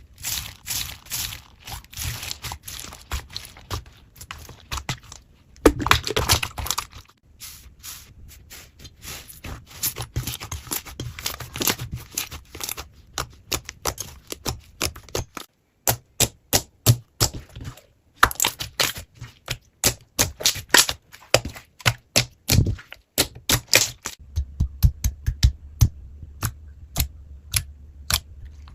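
Slime being handled by hand for ASMR: a dense run of crackling and popping for the first half, then, after a short break about halfway, sharp separate clicking pops a few times a second.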